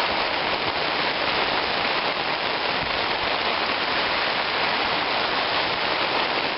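Spray from a garden hose attachment pattering steadily on a hammock tarp, heard from underneath the tarp like heavy rain on fabric.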